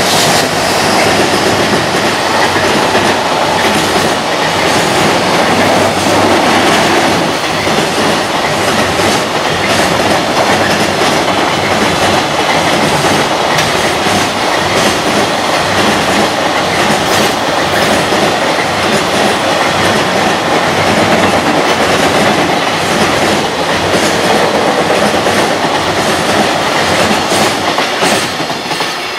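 JR Freight EF210 electric locomotive and its long train of container wagons passing at speed over a steel girder bridge. A loud, steady rumble of wheels on rail mixes with a rapid clickety-clack of the wheels striking the rail joints.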